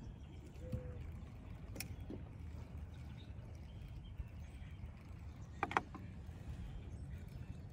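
A spinning fishing reel being worked gives a few sharp clicks: one about two seconds in and a louder double click near six seconds. A low steady rumble runs underneath.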